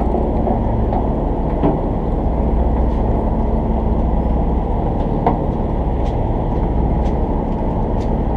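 A boat's engine running steadily, a low hum under a muffled rush, with a few faint clicks.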